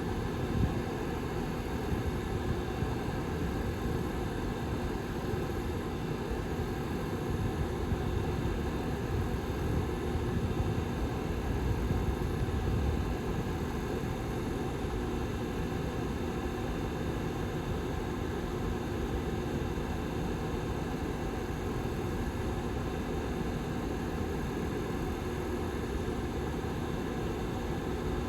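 Back fan of a Lasko 755320 tower heater running steadily: an even rush of air with a low, steady hum underneath.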